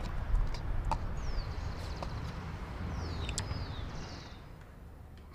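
Birds chirping over a steady low outdoor rumble: short high chirps sweeping downward about a second in and again around three seconds in, with a few faint clicks.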